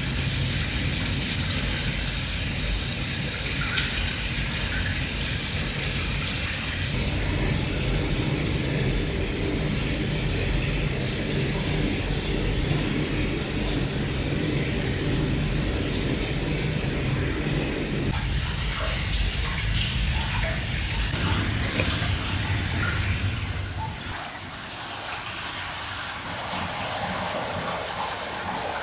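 Hot-spring water pouring steadily from a spout into an open-air bath, a continuous splashing rush. Near the end it turns thinner and a little quieter.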